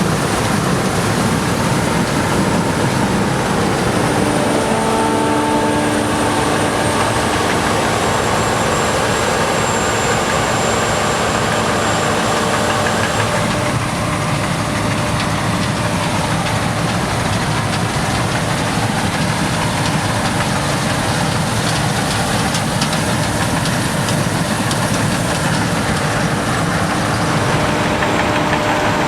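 Claas Lexion combine harvester on steel tracks, running steadily while harvesting rice: a constant machine noise of engine and threshing gear. A few steady tones are mixed in for several seconds in the first half.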